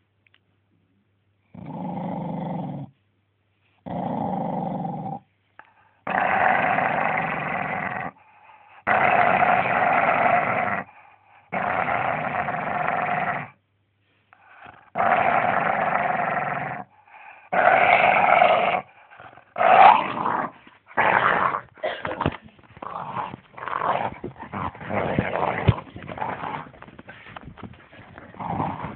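Staffordshire bull terrier growling in about seven long, drawn-out growls of a second or two each, with short pauses between. After about twenty seconds the growls break into rapid, choppy bursts. It is possessive growling by a dog that won't share its toy.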